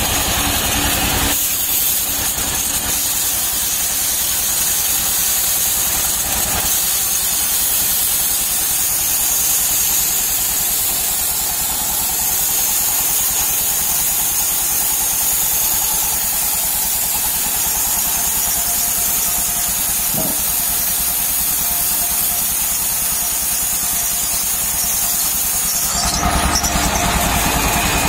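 Sawmill band saw cutting lengthwise through a palm log: a loud, steady hissing whine over the machine's running hum, setting in about a second in and giving way to the plain running hum near the end.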